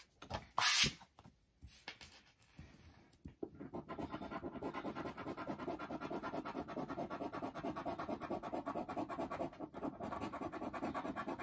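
Plastic scratcher rubbing the coating off a scratch-off lottery ticket in fast, steady back-and-forth strokes, starting about three seconds in. Before that, a few scattered handling sounds and one brief loud rustle near the start.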